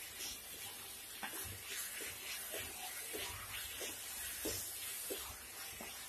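Wooden spatula stirring and scraping moist crumbled khoya and ghee-cooked grated bottle gourd around a nonstick kadhai, with a soft sizzle underneath. The spatula gives a short wet scrape about twice a second.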